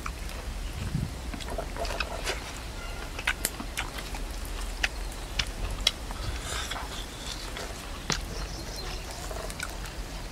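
Pork offal grilling on a wire grate over wood embers, with scattered sharp crackles and pops from sizzling fat and snapping embers.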